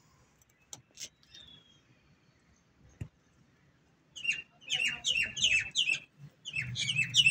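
Birds chirping: a rapid run of high, sharp chirps, about four a second, that starts about four seconds in and comes in two bursts with a short break between them.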